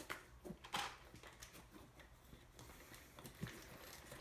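A few faint clicks, scrapes and knocks of a hand tool and hands working at a 1/8-scale RC monster truck's wheel hub, trying to loosen a centre wheel nut that is torqued down hard.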